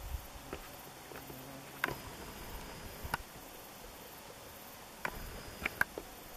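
Quiet outdoor background hiss with a handful of short, sharp clicks scattered through it, two of them close together near the end.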